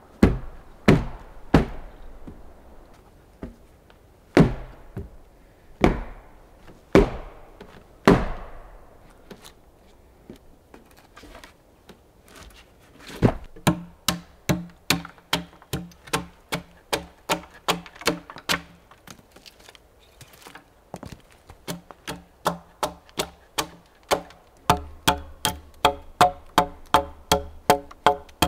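Axe blows into a hewn timber beam: a handful of heavy, spaced knocks, then from about halfway a steady run of sharp chops, two to three a second, each with a short ring, as a joint notch is cut out by hand.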